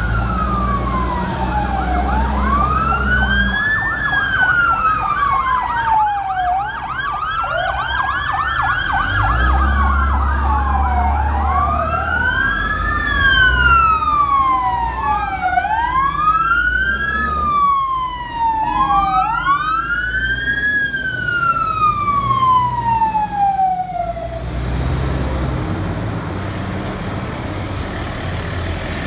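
Wailing sirens of civil defence fire engines pulling out, each rising and falling every few seconds, two or more sounding out of step over the rumble of the trucks' engines. The sirens cut off about 24 seconds in, leaving engine noise.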